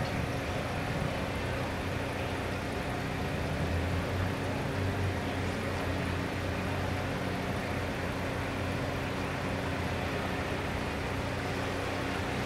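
Steady low hum of road vehicles idling, with no bell strikes or other sudden sounds.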